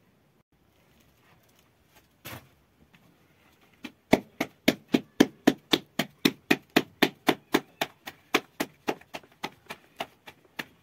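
Raw flatbread dough slapped back and forth between the palms to stretch it thin: an even run of sharp slaps, about four a second, starting about four seconds in.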